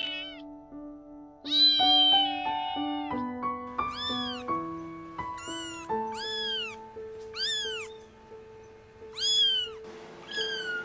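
Kittens meowing: a string of about nine high-pitched mews, each rising then falling in pitch, the longest and loudest about a second and a half in. Background music with held notes plays underneath.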